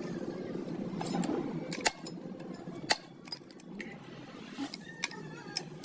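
Scattered sharp metal clinks and taps of tools and gearbox parts being handled, a few seconds apart, over a low steady background noise.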